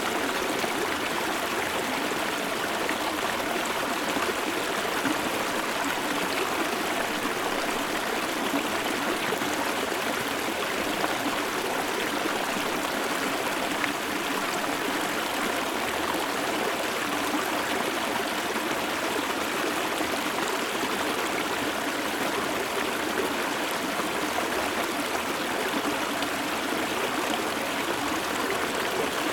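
Shallow river stream flowing steadily over stones close up, an even splashing rush of water.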